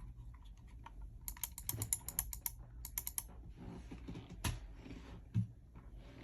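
Mechanical keyboard with Akko CS Rose Red linear switches (43 gf) being typed on. Scattered keystrokes speed up into a fast flurry from about one to three seconds in, then thin out again, with one dull, heavier thump near the end.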